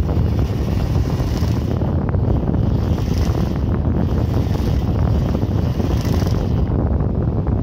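Bosch GBH 220 720 W hammer drill running with its front gear housing off, the motor and exposed gears turning with a steady, rough mechanical noise.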